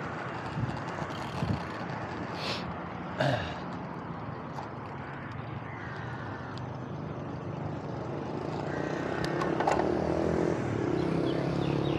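Road bike riding with a body-mounted action camera: a steady rush of wind and tyre noise on asphalt, with a few clicks and knocks in the first few seconds. From about eight seconds in, a motor vehicle's engine hum grows louder as traffic passes.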